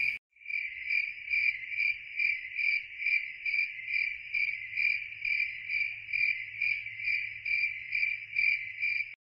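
Cricket chirping, a steady, even pulse of about two chirps a second that stops suddenly near the end.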